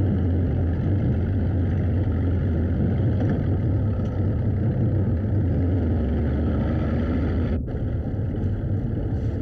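Motorboat engine running steadily with a deep hum, under a wash of wind and water noise. The sound cuts out for an instant about three-quarters of the way through.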